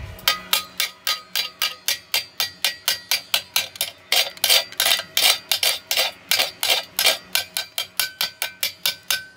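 Locking pliers struck repeatedly against a fresh stick weld on a steel bar, knocking off the slag: quick metallic taps about four a second, each with a short ring.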